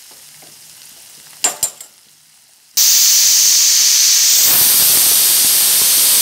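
Onions and ginger sizzling softly in butter, with a couple of spoon scrapes on the pan. About three seconds in, a loud, steady hiss starts suddenly: steam venting from an aluminium pressure cooker's weight valve.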